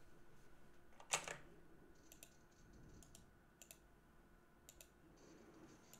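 Near silence, broken by one brief soft click about a second in and a few very faint ticks after it.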